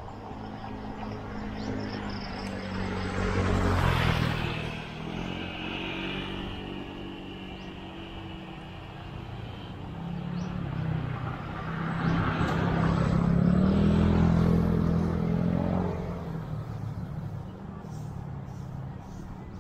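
Motor vehicles passing close by on the road, their engines swelling and fading twice: a short pass about four seconds in and a longer one from about ten to sixteen seconds, over steady road and wind noise.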